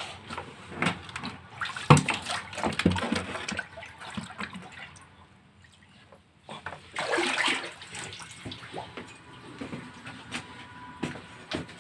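Water splashing and sloshing with irregular knocks, and a longer splash about seven seconds in.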